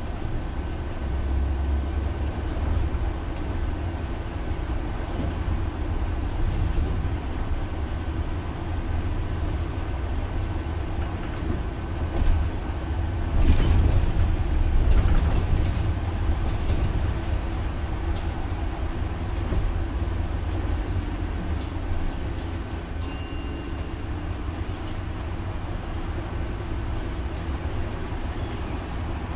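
Interior running noise of a MAN Lion's City articulated city bus with a biogas engine, heard from the front of the cabin: a steady low rumble of engine and road. About halfway through there is a louder knock and a short louder stretch, and a few light clicks come later.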